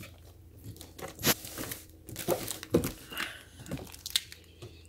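Hands gripping and turning a shrink-wrapped cardboard box: irregular crinkles and crackles of the plastic wrap, with a few sharp taps.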